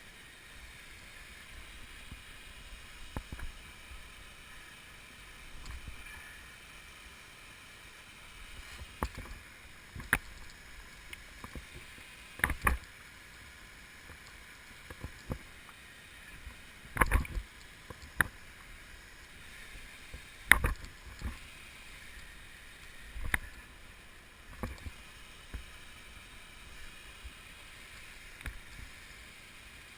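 Steady rushing of the waterfall, broken by irregular knocks and rustles of rope and gear being handled close to the microphone, a few of them sharp and loud.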